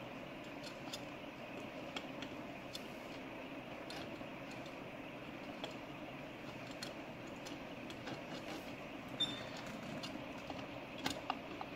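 Light clicks and taps of metal motorcycle transmission parts being handled and fitted, scattered throughout, with a few louder knocks about nine seconds in and near the end, over a steady workshop background hum.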